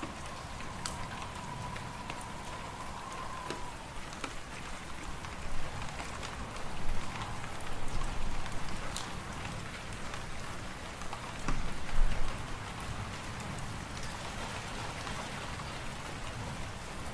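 Fireplace fire crackling over a steady hiss of wind and snow, with deeper gusts swelling twice in the middle and a faint whistle at the start.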